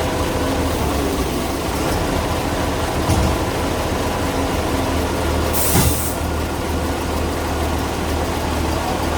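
A heavy engine running steadily, with a thump about three seconds in and a short burst of hiss a little past halfway.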